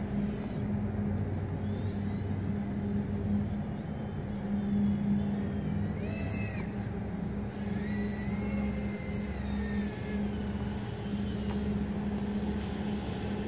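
Brushless motors of a small FPV racing quadcopter, heard from a distance, their whine rising and falling in pitch with the throttle, over a steady low hum.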